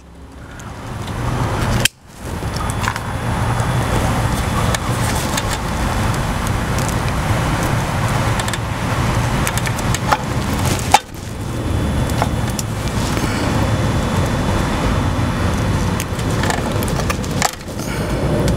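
A steady low rumble, with sudden brief dropouts about two seconds in and again near eleven seconds.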